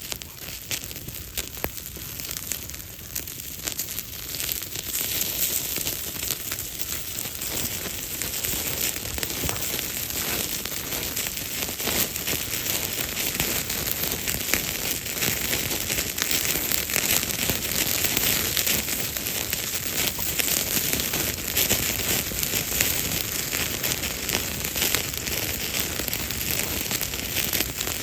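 Campfire of damp wood crackling and popping close by, with a steady hiss that builds up over the first few seconds.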